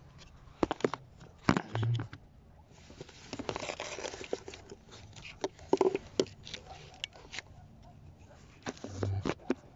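Handling noises: scattered clicks and knocks, with a longer rustle about three and a half seconds in.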